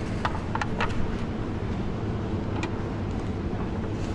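Supermarket aisle ambience: a steady low hum beside the refrigerated dairy cases, with a few light clicks and knocks as a plastic yogurt tub is handled.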